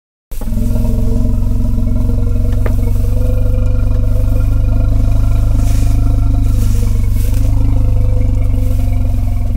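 Asian elephant rumble: a loud, deep, steady call with a stack of low harmonics, starting a moment in and holding without a break.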